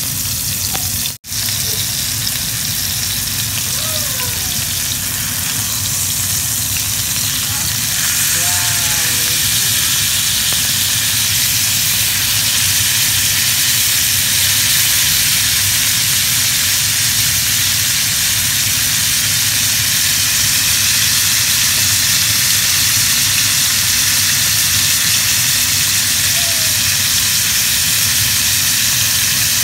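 Steaks searing in hot oil in a cast iron skillet, sizzling steadily. The sizzle cuts out for an instant about a second in and grows louder about eight seconds in.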